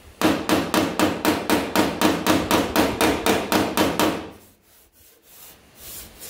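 A hand ratchet clicks in an even run, about four clicks a second, as a bolt is cranked tight to draw the bent hood panel up level against an angle-iron brace, the sheet metal ringing with each click. It stops after about four seconds.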